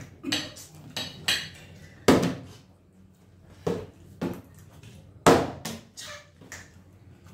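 A partly filled plastic water bottle is flipped and knocks down on a wooden tabletop, among a spoon's clinks against a plate. There are several sharp knocks, the loudest about two seconds in and about five seconds in.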